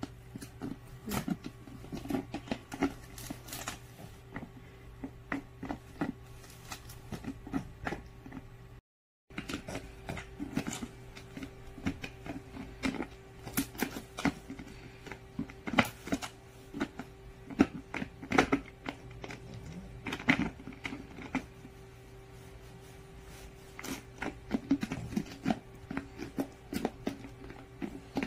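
French bulldog gnawing and biting at the cap and neck of a clear plastic PET water bottle, the plastic crackling and clicking in irregular snaps. A steady low hum runs underneath, and the sound cuts out briefly about nine seconds in.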